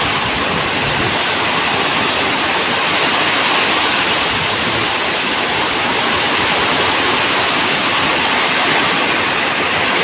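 Heavy rain pouring down in a summer storm, a steady dense rush that keeps an even loudness throughout.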